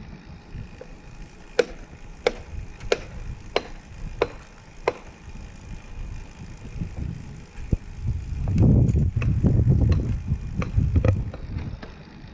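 Recumbent bike in motion: a sharp click comes at an even pace, about every two-thirds of a second, six times. Later a louder low rumble rises for a few seconds, with a few more clicks in it.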